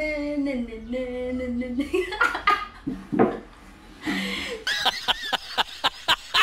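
A young woman sings a wordless tune on a held, stepping voice for about two seconds, then breaks into laughter, ending in a run of quick short laughs.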